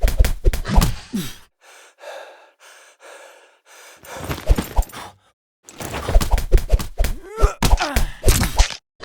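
Fight sound effects: quick runs of hits and thuds mixed with gasps and grunts. There is a short lull of breathy panting in the middle, and the blows pick up again about four seconds in.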